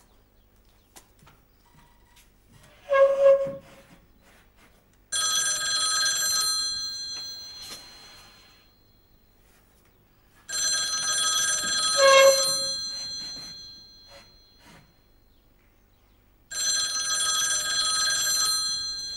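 Telephone bell ringing three times, each ring starting sharply and fading over a few seconds. A short clunk comes just before the first ring.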